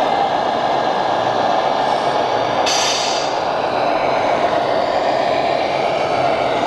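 Scale RC Mercedes-Benz Actros truck's sound module playing a heavy diesel engine running steadily, with a short burst of hiss about three seconds in.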